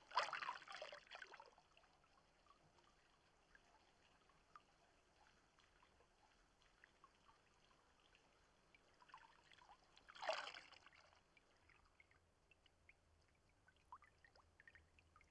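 Water splashing and pouring over a person's head during a river baptism, in two short bursts about ten seconds apart, with faint trickling and dripping between.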